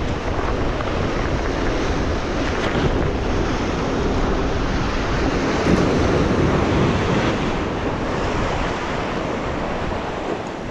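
Sea surf breaking and washing over rocks, with wind buffeting the microphone; the wash swells a little about six seconds in.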